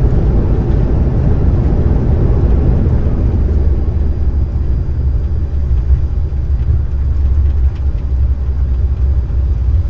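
Airbus A330-300 landing rollout heard from the cockpit: a loud, steady rumble of the wheels on the runway and the engines in reverse thrust as the autobrake slows the aircraft. The higher rush eases a little toward the end as the aircraft slows.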